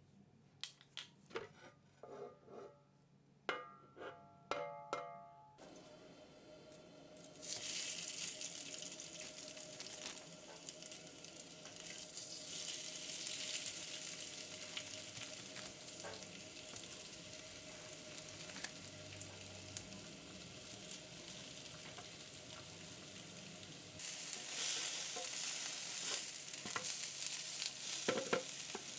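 A few sharp clinks and knocks, then chicken burger patties sizzling steadily in a hot pan from about seven seconds in; the sizzle grows louder about four-fifths of the way through.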